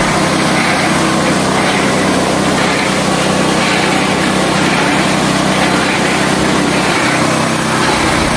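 Small petrol engine of a mini concrete mixer running steadily at a constant speed.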